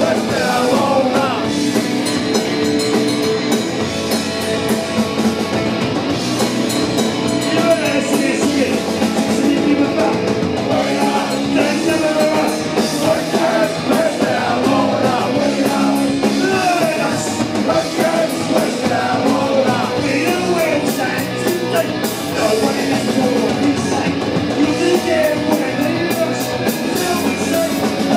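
Live punk rock band playing: drum kit and bass guitar with a singer's vocals over the top, loud and without a break.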